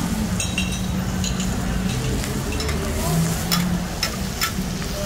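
Oil sizzling on a large flat griddle as omelettes fry, with metal spatulas scraping and clicking against the pan several times.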